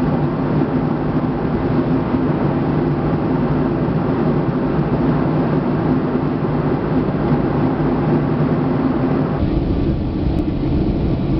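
Steady cabin noise of a Boeing 757-200 in flight: engine and airflow rumble heard from a window seat. About nine seconds in, it changes to a deeper, duller rumble as the airliner descends.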